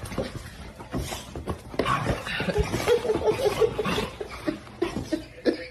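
A person laughing in a quick run of short repeated sounds, among scattered knocks and clatter.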